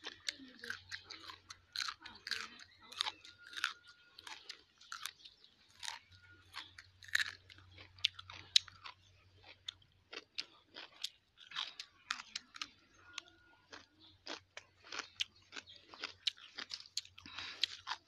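Dry fallen leaves and twigs crunching and crackling underfoot in irregular short snaps, several a second.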